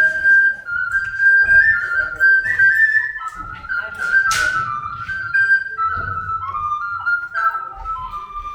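Background music: a flute-like wind instrument playing a slow melody of held notes that step up and down.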